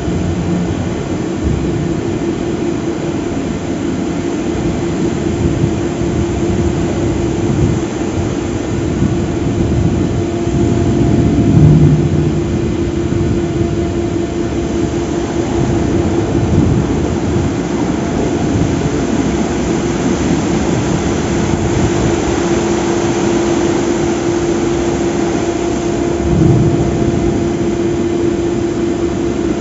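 Gantry crane hoist running steadily while it lowers a heavy steel stoplog into a dam spillway's guides: a loud, even machine drone with a constant whine. It swells briefly twice, about 12 s and 26 s in.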